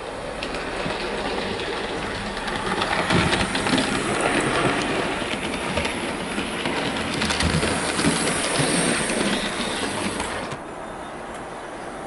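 Hornby OO gauge Princess Coronation Class model steam locomotive running along the layout's track. It grows louder as it comes near, from about three seconds in, and drops away suddenly near the end.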